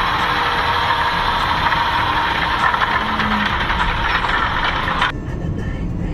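John Deere tractor engine running steadily under load as it pulls a multi-furrow plough through soil. About five seconds in, the higher-pitched noise cuts off abruptly, leaving only a low rumble.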